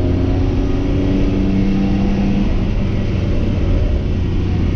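BMW M2 CS's twin-turbo inline-six running hard on track, a steady drone heard from inside the cabin along with tyre and wind noise.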